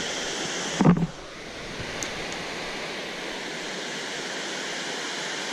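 Steady rush of floodwater pouring over a weir, with one brief loud sound about a second in.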